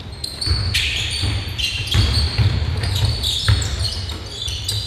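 A basketball bouncing repeatedly during play, giving dull thumps over and over. Short high-pitched squeaks come and go with it, typical of sneakers on a court.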